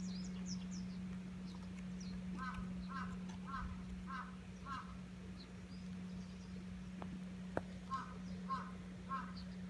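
A crow cawing in two runs of evenly spaced caws, five in a row and then three more near the end, with small birds chirping faintly. A steady low hum runs underneath.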